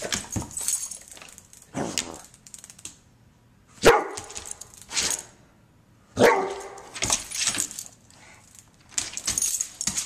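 Large mastiff-type dog giving a few short, sudden barks, the loudest about four seconds in and again about six seconds in, with quiet gaps between.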